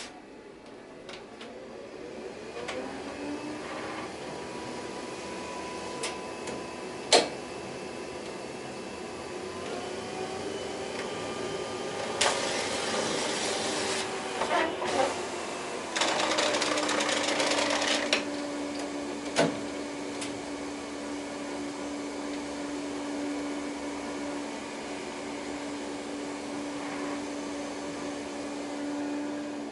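HP Designjet 5000ps large-format printer running its motors and feeding the finished print out before the cut: a steady motor whine that steps down in pitch about halfway through. A few sharp clicks and two stretches of hiss come in the middle.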